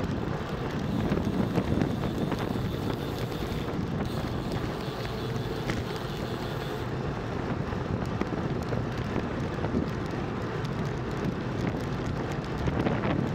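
Wind rushing over the action camera's microphone as a road bike moves at speed, a steady low rumble of noise.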